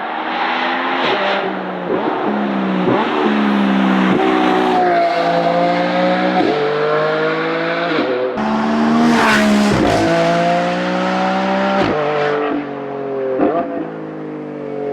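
Lamborghini Revuelto's V12 engine through a Novitec exhaust under hard acceleration, its pitch climbing and then dropping sharply at each quick upshift, one to two seconds apart, over two separate runs.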